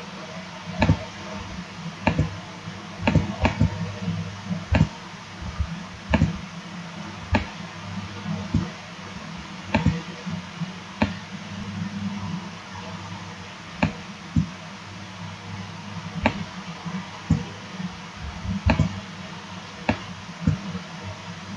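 Computer mouse clicking at irregular intervals, sharp single clicks and quick pairs mostly one to two seconds apart, over a steady low hum.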